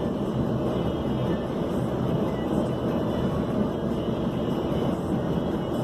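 Steady road and engine rumble inside a moving vehicle at highway speed.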